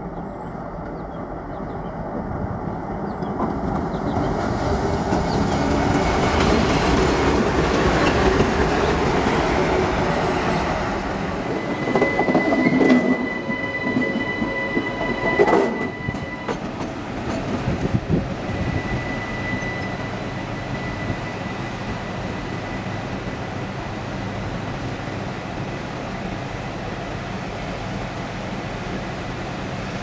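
A WDM-3A diesel locomotive's engine rumbling and building up as it runs. Then an electric locomotive rolls over the rails, with two heavy clanks about halfway through and a thin high tone held for several seconds, before settling to a steady rumble.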